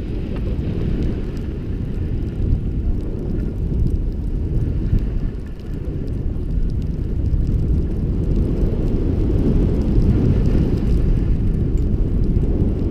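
Wind buffeting a GoPro's microphone as its wearer skis down a groomed run: a steady, loud low rumble that grows a little louder in the second half.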